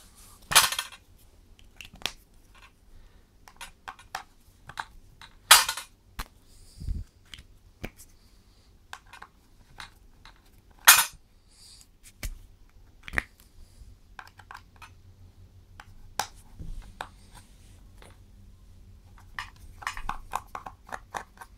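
Small screwdriver working the screws of a circuit board in a plastic kitchen-scale housing: scattered metallic clicks and clinks, with a few louder sharp knocks near the start, about five seconds in and about eleven seconds in.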